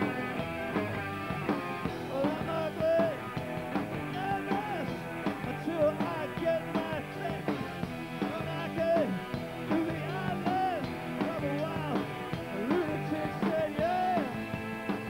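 A rock band playing live, with electric guitars, bass and drums, and a male lead vocal singing over them.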